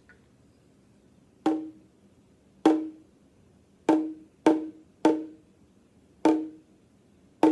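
A hand percussion instrument struck with a stick, about seven sharp knocks with a short ringing tone, roughly one a second with a quicker run in the middle. It gives a lot higher sound than the deep drum it is set against.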